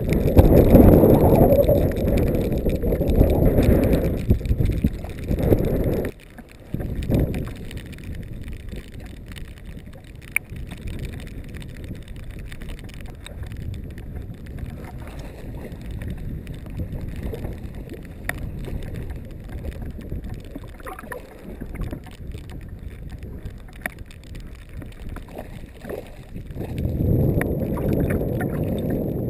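Wind buffeting the microphone, heavy for the first six seconds, then dying down, and rising again near the end. In the quieter stretch between, water laps against the float tube.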